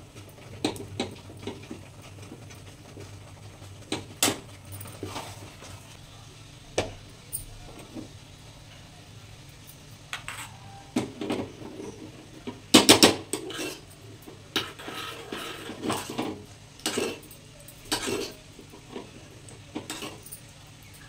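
Steel spoon clinking, tapping and scraping against steel cooking pots and a small tadka pan. The strikes are scattered, with a burst of loud rapid clinks a little past halfway, over a low steady hum.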